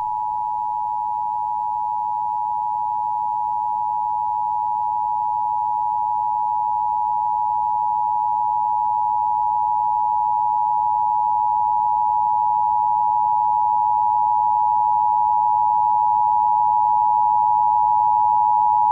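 Emergency Alert System two-tone attention signal: two steady pitches sounding together, held unbroken and slowly growing a little louder. It announces an emergency alert, here a severe thunderstorm warning.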